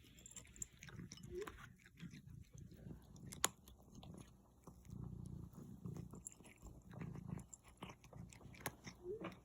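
A cat chewing and biting its food, a run of small irregular crunches and mouth clicks, with one sharper click about three and a half seconds in.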